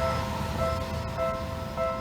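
Japanese level-crossing electronic warning bell ringing, a two-tone ding repeating about every 0.6 seconds, signalling that the crossing is closed. A low rumble from a just-passed train dies away under it.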